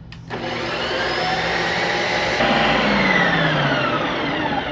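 Ninja Creami XL ice cream maker running a re-spin cycle, its motor driving the paddle through a frozen pint of ice cream with a loud, steady whir. It starts with a click just after the beginning, and its whine rises and then sinks in pitch over the second half.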